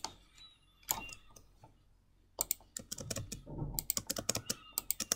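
Typing on a computer keyboard: a few separate key clicks, then a run of quick keystrokes from about two and a half seconds in.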